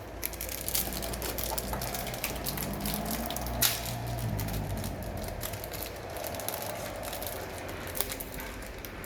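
A thin sheet-metal motherboard I/O shield being worked out of or into the back of a PC case, with a run of small clicks and crackles and one louder snap about three and a half seconds in.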